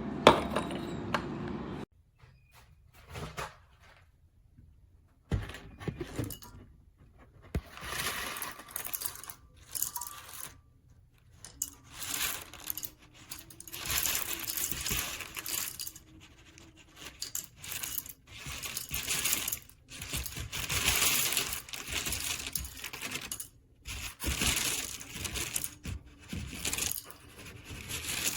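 Handling noises from a metal hand coffee grinder: repeated scraping and rubbing in short bursts about a second long, with a few light clinks, as it is worked and turned over in the hands.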